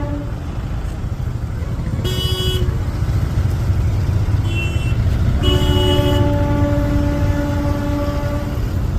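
Horns sounding several times over a steady low engine rumble: short blasts about two and four and a half seconds in, then one long blast of about three seconds, in at least two different pitches.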